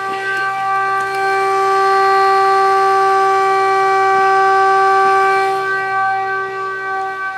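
Homemade electric siren, powered by a model-train transformer, sounding one steady tone held at a single pitch. It grows louder for a few seconds in the middle, then eases back.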